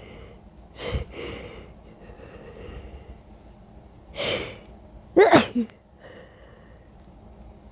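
A person sneezing from allergies. There is a short burst about a second in, then a noisy breath in and the loudest, voiced sneeze about four to five seconds in.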